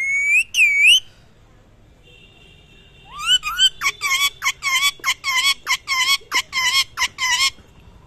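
Rose-ringed parakeet calling: two loud whistled notes that swoop up and down in the first second, then, about three seconds in, a fast run of about fourteen short, wavering calls, some three a second.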